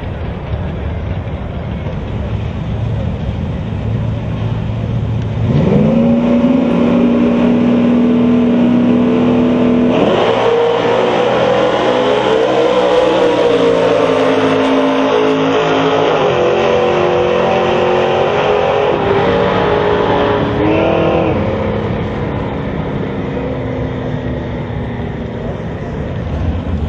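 Drag racing cars launching and running down the strip at full throttle. The engine note jumps up sharply about five seconds in and holds, then turns busier with steps in pitch as the cars shift. It falls away about twenty-one seconds in as they lift off near the finish.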